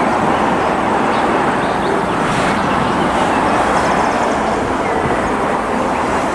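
Scania truck and trailer driving along a highway: a steady, even rush of engine and road noise.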